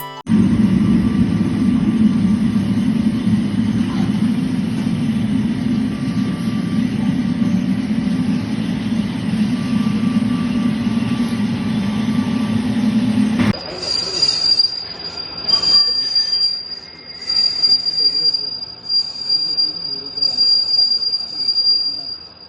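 Loud, steady low machine noise that cuts off abruptly about thirteen seconds in, followed by a thin, steady high-pitched squeal over uneven, surging mechanical noise.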